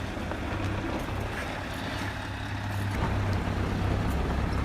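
Scania R730 truck's 16.4-litre V8 diesel engine running, a low steady sound that grows a little louder in the second half.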